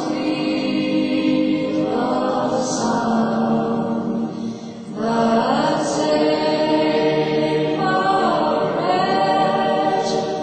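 Choral singing: voices holding long chanted notes in phrases of two to three seconds, with breaths between phrases and no drum.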